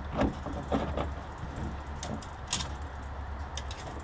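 Scattered light clicks and taps from a metal brake line being worked by hand among engine-bay parts, over a steady low hum. The sharpest tap comes about two and a half seconds in.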